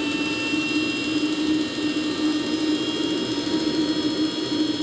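RC model turbojet engine of about 70 lb thrust running steadily: a loud, even roar with a high turbine whine that creeps slightly upward in pitch.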